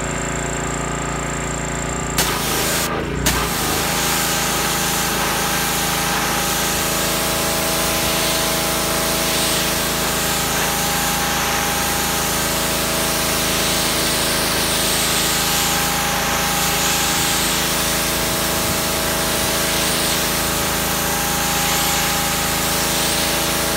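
Pressure washer running steadily, its motor humming under the hiss of the high-pressure water jet spraying onto a porcelain tile to rinse off the cleaner. The spray grows fuller about two seconds in, breaks off briefly, then runs on without change.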